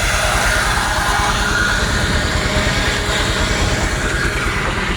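Steady, loud rumble of running machinery, with no break or change.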